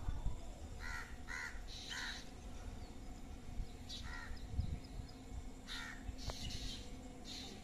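Crow cawing repeatedly. Three harsh caws come in quick succession about a second in, one follows around the middle, and a few more come near the end.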